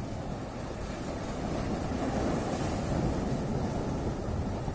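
Sea waves washing against and breaking over shoreline rocks, a steady surging wash that swells a little midway, with wind buffeting the microphone.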